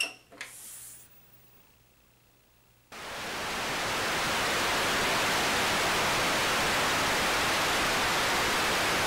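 A click as the power button of a Samsung CRT television is pressed. After about three seconds of near quiet, loud, steady static hiss from the untuned set starts suddenly and swells briefly to full level.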